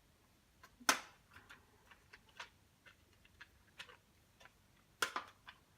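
Irregular light clicks and taps from small hand tools such as screwdrivers being handled and set down, with two louder clacks, one about a second in and one near the end.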